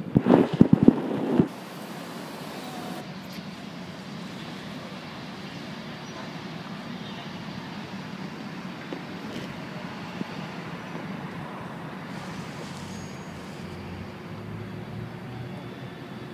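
Steady street traffic noise, after a burst of loud knocks and bumps in the first second and a half.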